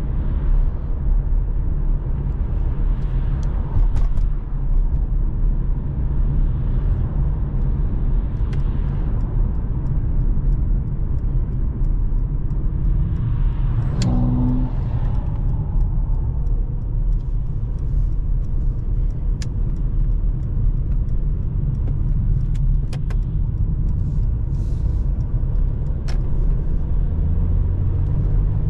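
Mercedes-AMG C43's 3.0-litre twin-turbo V6 running with road noise while driving: a steady low rumble, broken by a few scattered sharp clicks.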